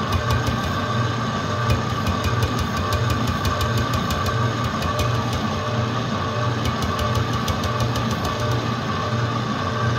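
Electric stand mixer running steadily, its whisk beating egg and sugar batter for a sponge cake, with a constant motor hum and light, quick ticking throughout.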